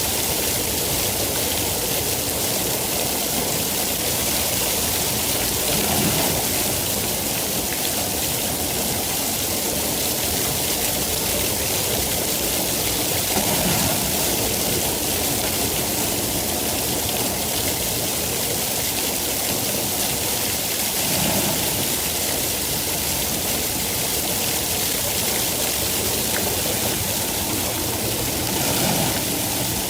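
Rain falling steadily, an even, unbroken hiss of water.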